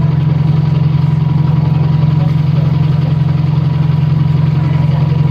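Sightseeing boat's engine running steadily, heard on board: a loud, unbroken low drone with a fast fine throb, and a faint steady whine above it.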